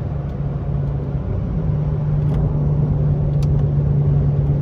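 Lexus engine and aftermarket axle-back exhaust droning steadily while driving, a deep note without rasp. The pitch steps up slightly about one and a half seconds in and the sound grows gradually louder as the car pulls harder.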